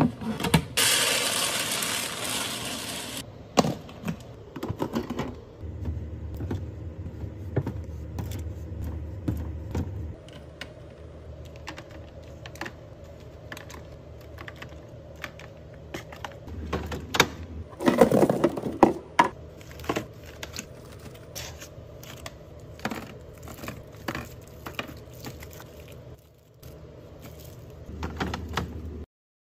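Fridge restocking: plastic containers, lids and packaging clicking, knocking and clattering as they are handled and set down. There is a rushing hiss for about three seconds at the start and a louder bout of clatter about two-thirds of the way through, over a steady low hum.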